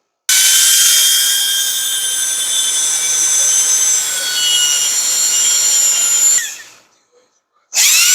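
A small high-speed power tool motor runs with a steady high whine for about six seconds, winds down falling in pitch, and starts again near the end.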